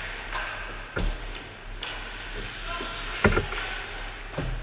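Ice hockey play around the net: three hard thuds of puck, sticks or bodies against the boards and goalie, about a second in, the loudest just past three seconds, and another near the end. Short scrapes of skate blades on the ice between them, over a steady low rink hum.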